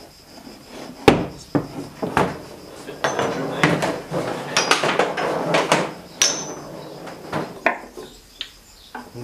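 Table football (foosball) game on a wooden table: quick, irregular knocks and clacks as the figures strike the ball, the ball hits the table's walls, and the rods bang. The busiest run of knocks comes in the middle.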